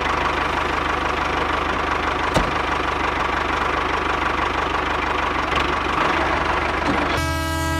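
Tractor engine running steadily at idle with a fast knocking rhythm, one click about two seconds in. Near the end a train horn starts blowing.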